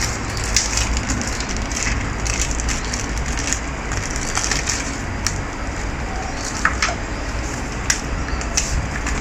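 Crinkling of a clear plastic parts bag being handled, then paper rustling as a folded instruction leaflet is opened, with scattered sharp crackles over a steady low hum.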